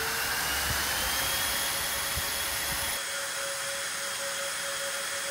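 Four 40×28 mm Delta server fans on a 3D printer frame running at high speed: a steady rush of air with a thin high whine. The low rumble underneath drops away about three seconds in.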